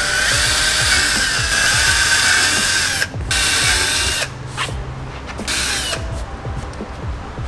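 Cordless drill with a 7/32-inch twist bit drilling through the plastic shell of a Pelican case, running with a steady high whine. It stops about three seconds in, runs again for about a second, then goes quieter.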